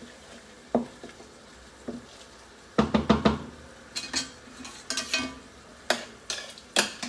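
A utensil knocking and clinking against a metal frying pan as tomato sauce is scraped out of it. The knocks come in a string of sharp separate hits, with a quick run of four about three seconds in.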